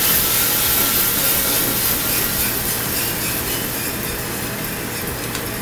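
Freshly roasted coffee beans pouring out of a US Roaster Corp drum roaster into its cooling tray and rattling as the rotating stirring arms sweep them over the perforated screen, with the machine's steady hum beneath. The rattle and hiss are loudest in the first couple of seconds as the batch drops out, then settle into steady stirring.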